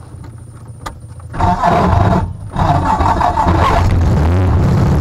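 Corvair air-cooled flat-six engine of a KR-2 homebuilt airplane being started. It turns over low for about a second and a half, catches loudly, dips briefly about two and a half seconds in, then runs on and settles toward an even idle.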